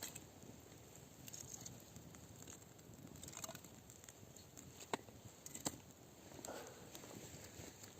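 Faint campfire crackling, with a few sharp, separate pops.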